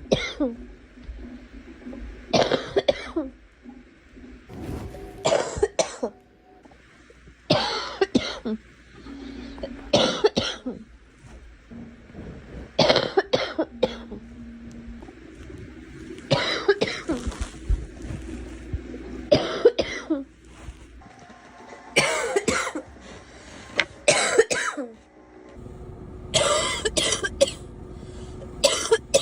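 A girl coughing repeatedly: short, sharp coughs about every two to three seconds, some coming in quick pairs or threes.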